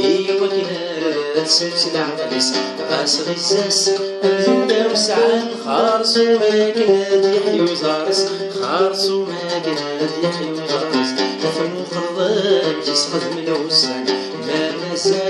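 A man singing, accompanying himself on an oud with repeated plucked notes under a melody that slides and bends.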